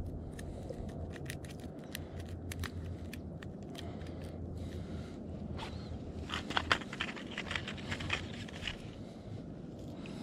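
Close handling noise: scattered light clicks and scrapes, busiest from about six to nine seconds in, over a low steady rumble.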